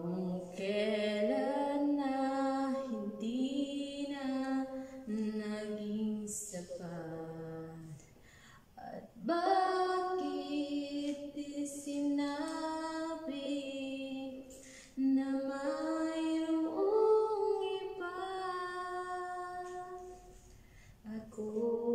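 A woman singing a Tagalog ballad unaccompanied into a handheld wireless microphone. She holds long notes that step up and down in pitch, and breaks off briefly twice for breath, about eight seconds in and again near the end.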